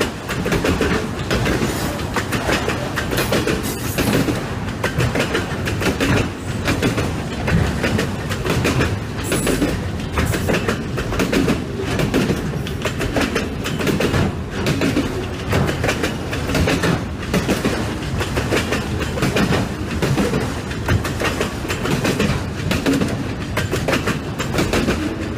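Auto-rack freight cars of a unit train rolling past, their wheels clattering steadily over the rail joints.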